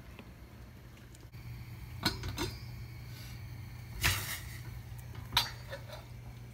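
A few short knocks and clinks from a stainless-steel saucepan and its lid: a pair about two seconds in, another about four seconds in and one more a little after five seconds, over a steady low hum.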